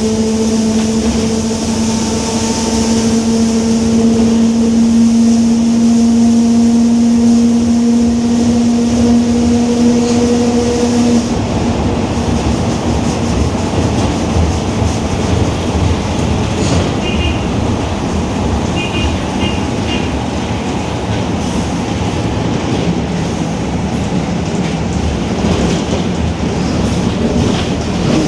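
Differential of a Marcopolo Torino S city bus whining with a steady tone over the drive and road noise while cruising on the highway. The whine stops about eleven seconds in, leaving road and drivetrain noise, with a few faint short beeps later on.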